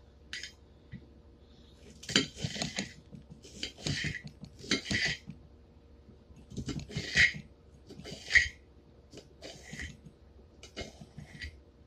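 Kitchen knife thinly slicing a green bell pepper on a plate: a series of separate crisp cuts at irregular intervals of about a second, the blade crunching through the pepper and tapping the plate.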